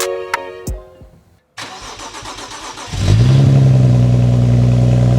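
The music stops about a second in, and half a second later a car engine is cranked; it catches about three seconds in, rises briefly and settles into a steady idle. The engine is the BMW 135i's N55 turbocharged straight-six.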